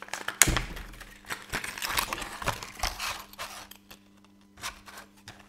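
Clear plastic blister pack of a fishing lure being handled and pried open by hand: crinkling and crackling with many small clicks, a sharp snap about half a second in, then sparser and quieter after about three seconds.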